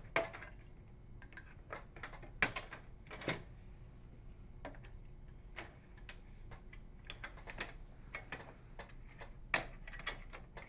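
Plastic retaining clips on a microwave door's inner panel trim are snapping free as a putty knife and small flathead screwdriver pry around its edge. The result is irregular sharp clicks and taps, some louder than others.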